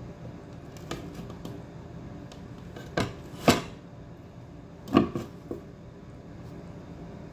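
Cutlery and dishes knocking and clinking a few times, two of the knocks much louder than the rest, over a steady low hum.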